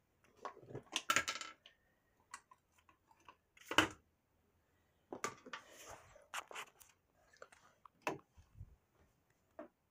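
Irregular clicks, taps and rustling from a phone being handled and moved about, with fingers and clothing rubbing close to its microphone; the loudest knocks come about a second in and about four seconds in.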